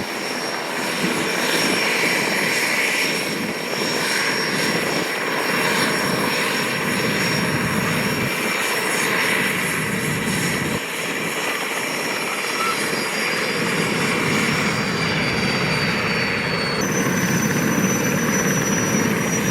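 SA-330L Puma helicopter running on the ground, its twin turbines whining steadily over the rotor and engine noise. Near the end the turbine whine steps up in pitch.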